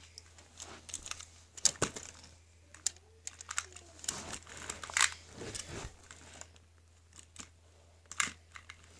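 Hands handling small plastic toy props: scattered irregular clicks and crinkly rustling, with the sharpest clicks at about 2, 5 and 8 seconds in.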